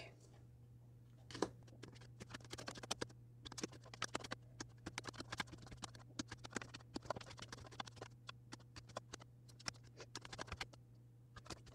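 Tarot cards being sorted by hand into piles: a faint, irregular run of quick card flicks and taps.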